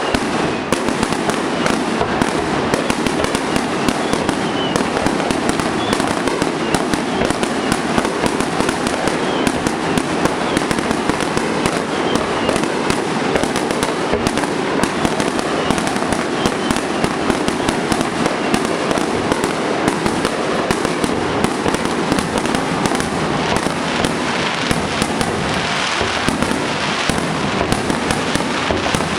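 Fireworks display: a dense, continuous barrage of aerial shell bursts and crackling, with no pause between reports.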